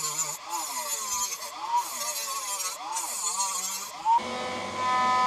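A rotary tool's small cut-off disc grinding into thin 0.5 mm stainless steel sheet to cut tabs. The motor's pitch sags and recovers as the disc bites, under a grinding hiss that stops briefly a few times. A little after four seconds the tool runs free with a steady whine.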